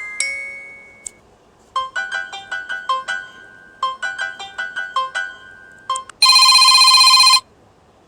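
Built-in ringtones of an Asus ZenFone 2 Laser playing one after another. A chiming note fades out in the first second, then a quick run of bell-like electronic notes plays twice. Near the end a loud buzzing electronic ring lasts about a second and cuts off.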